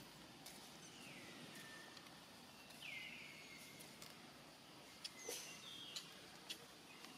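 Two faint high-pitched animal calls, each sliding down and then holding a steady note, over quiet outdoor background, with a few light clicks near the end.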